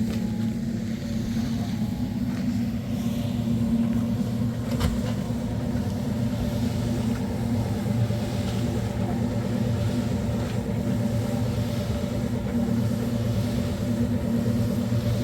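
A motor vehicle's engine running steadily at an even speed, with a single short click about five seconds in.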